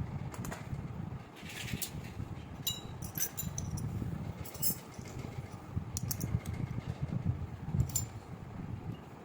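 Small toy kitchen pieces being handled, giving scattered light clicks and clinks at irregular intervals over a low steady rumble.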